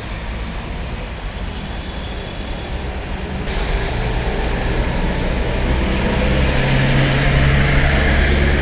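Steady hiss of rain with a vehicle engine's low hum, which grows louder in the second half after a sudden change about three and a half seconds in.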